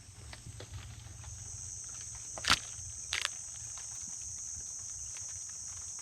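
Steady high-pitched chorus of night insects such as crickets, with a faint low hum underneath. A sharp click about two and a half seconds in, and a smaller one about half a second later.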